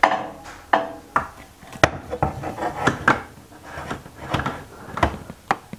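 Metal tubular crash bar knocking and scraping against a motorcycle's frame brackets as it is worked into position by hand: a dozen or so irregular sharp clunks with rubbing in between, the loudest right at the start.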